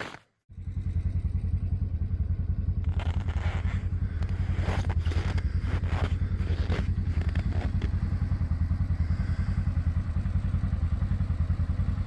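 Tracked side-by-side UTV engine idling with a steady low, rapid pulsing. A few short knocks and clatter sound over it about three to seven seconds in.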